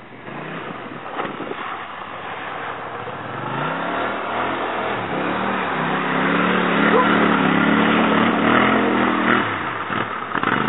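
Quad bike (ATV) engine revving as it drives through shallow lake water, with water splashing around the wheels. The engine grows louder and higher as it comes close, is loudest about six to nine seconds in as it passes, then drops away as it climbs out onto the bank.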